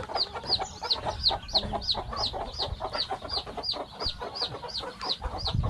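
Domestic chick peeping over and over in high, short, falling peeps, about three a second, with chickens clucking underneath.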